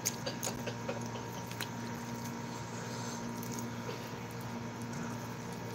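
Faint eating sounds: a few small crisp crackles from a fried flatbread being broken and handled, mostly in the first second or two, over a steady low hum.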